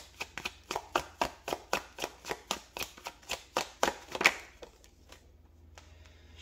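Tarot deck being shuffled by hand, the cards slapping together in a steady rhythm of about four a second, which stops a little past four seconds in. A few faint clicks of cards follow.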